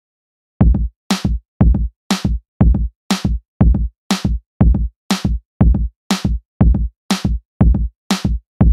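Background music: an electronic drum-machine beat starting about half a second in, with a low kick and a sharp snare-like hit alternating about twice a second.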